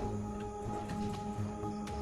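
Background music: a sustained drone of steady held tones over a low rumble.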